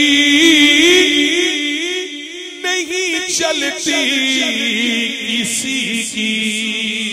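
A man singing an Urdu naat, drawing out a long wavering melisma with no clear words.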